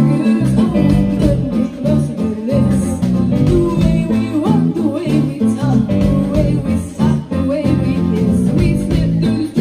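Live rock band playing: electric guitar, bass guitar and keyboard, with a girl singing lead. A bouncing bass line steps from note to note.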